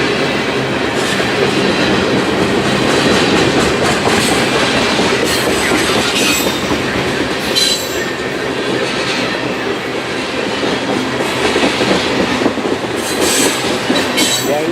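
Canadian Pacific mixed freight train rolling past: a steady loud rumble and clatter of steel wheels over the rail joints, with a few brief high-pitched wheel squeals.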